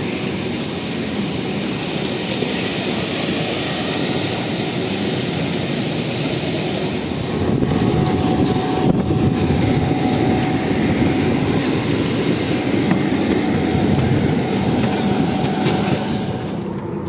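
Jet airliner noise with a steady high-pitched whine. It gets louder about halfway through and cuts off abruptly near the end.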